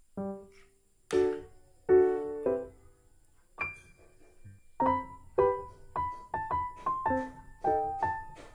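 Background piano music: a few sparse chords, then a quicker melody of single notes from about halfway through.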